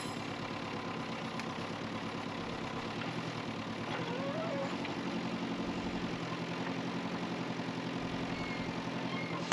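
Excavator's diesel engine running steadily at low revs, a little louder from about four seconds in.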